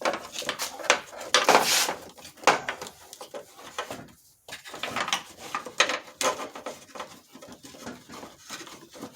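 Handling noises: a busy run of clicks, knocks and scrapes, with a longer rustling scrape about a second and a half in and a brief lull around four seconds.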